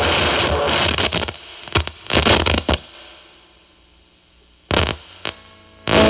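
ZVex Fuzz Factory Vexter fuzz pedal through a Marshall Valvestate amp: a loud, steady fuzzy buzz and hiss cuts off about a second and a half in. The fuzz then cuts in and out in several short stabs as the pedal's gate knob is turned.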